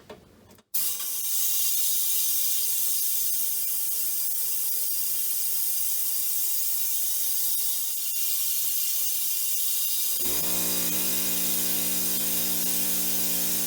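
Air-driven vacuum pump hissing steadily as it pulls a vacuum on a truck's R134a air-conditioning lines; it starts suddenly under a second in. About ten seconds in, a steady low hum joins it: the air compressor kicking on to recharge.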